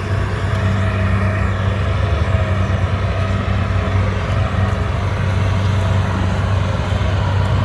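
Kubota DC60 rice combine harvester's diesel engine running steadily while it cuts rice, a loud, even drone.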